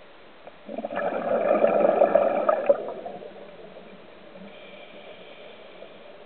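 Scuba diver's exhaled breath bubbling out of the regulator for about two seconds, starting under a second in, then fading back to the faint steady hiss of the water.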